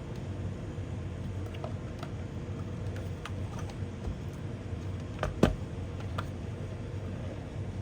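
Scattered light clicks and taps of hardware being handled, with one louder knock about five and a half seconds in, over a steady low hum.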